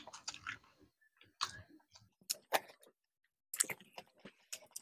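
People chewing food close to the microphone: scattered short mouth clicks and smacks, bunched most closely about three and a half seconds in.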